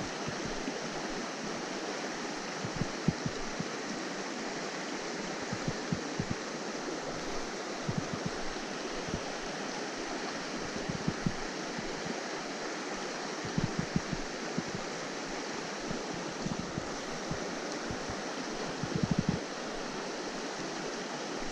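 Steady rush of a mountain stream's flowing water, with scattered short low thumps.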